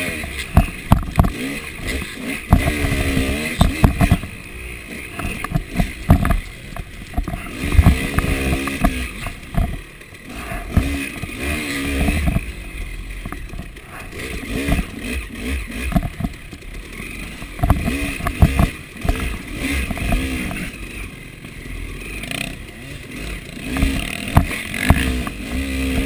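KTM 300 two-stroke dirt bike engine revving up and down repeatedly while ridden over a rough trail, with frequent knocks and clatter from the bike hitting roots and ruts.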